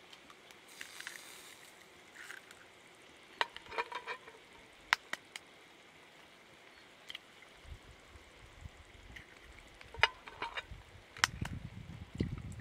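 Raw eggs being cracked by hand over a pan: sharp taps of eggshell, in a cluster a few seconds in and another near the end, some with a brief metallic ring. Underneath, a faint low sizzle from the tomato sauce heating on the embers.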